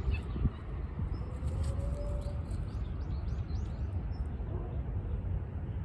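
Outdoor ambience: a steady low rumble, with faint, quick high chirps of small birds for a second or two, about a second and a half in.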